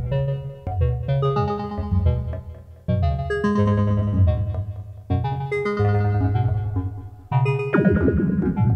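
Make Noise Eurorack modular synthesizer playing a generative patch: clusters of sustained oscillator tones struck about every one and a half to two seconds, each fading away before the next. Their brightness shifts from note to note under filter modulation.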